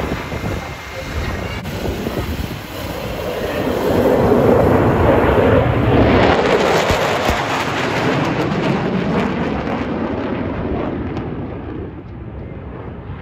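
An airplane flying past: a rushing engine noise that builds over the first few seconds, peaks around the middle and fades away toward the end.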